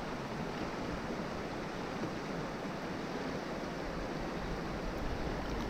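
Steady rush of a mountain river's flowing water, an even noise with no distinct events.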